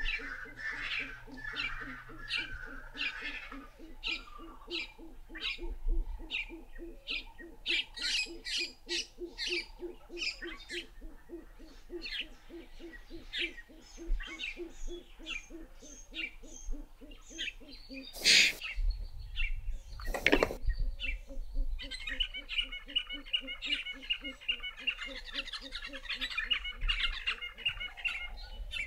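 Wild birdsong and calls: many short sharp chirps over a low pulsing call that repeats several times a second, with a high fast trill from about 22 to 27 seconds in. Two loud sharp knocks come about 18 and 20 seconds in.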